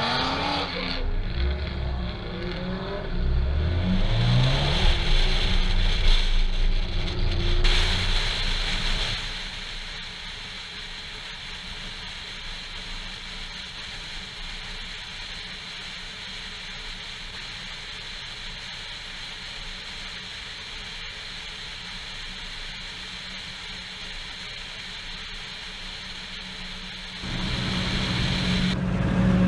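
Car engines accelerating, rising in pitch through the gears, then a long stretch of steady wind and road noise at highway speed. Louder engine sound comes back near the end.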